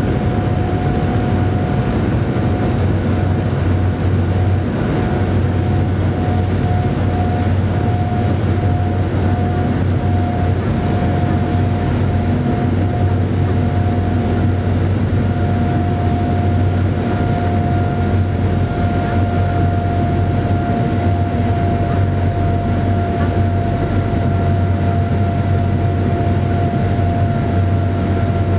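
Cabin noise of a COMAC ARJ21-700 airliner in descent: a steady rush of air and low drone from its rear-mounted CF34-10A turbofans, with a steady whine over it.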